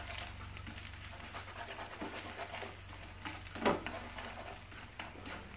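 Wooden chopsticks stirring and scraping scrambled eggs in a frying pan in repeated soft strokes, with one louder scrape a little past halfway through. A steady low hum runs underneath.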